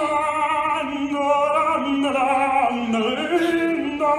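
A man singing in an operatic style, holding long notes with vibrato and sliding between pitches.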